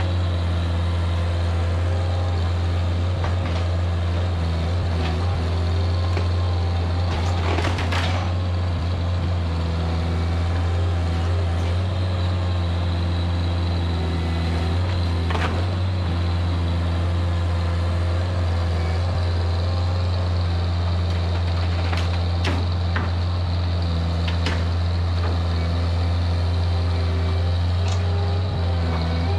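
Mini skid steer engine idling steadily, a constant low hum, with a few sharp knocks or clicks here and there.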